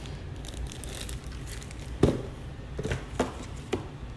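Plastic accessory packaging being handled and crinkled, with a few sharp clicks and taps, the loudest about two seconds in.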